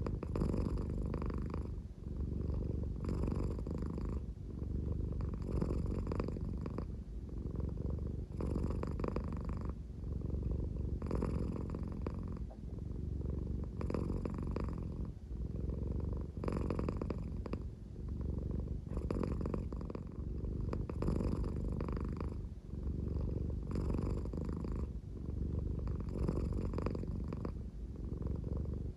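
American Shorthair cat purring slowly, a low continuous rumble that swells in a regular rhythm about every two and a half seconds, so that it sounds almost like snoring.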